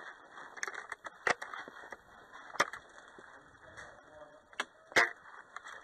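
Airsoft guns fired in single shots: four sharp cracks, the first two about a second apart and the last two close together near the end.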